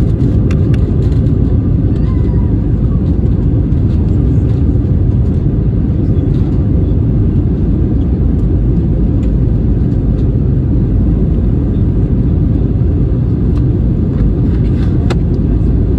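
Steady, loud low rumble of an Airbus A320neo's engines and rushing air heard from inside the passenger cabin during the climb after takeoff, with a faint steady hum and a few light clicks.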